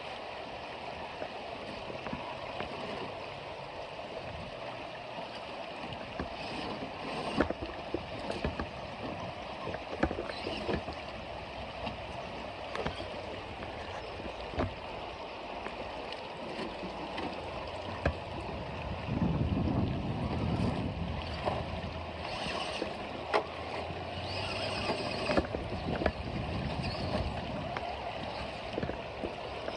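Shallow creek water running and splashing as RC rock crawlers wade through it, with many scattered sharp clicks. A louder low rush of splashing comes about two-thirds of the way in.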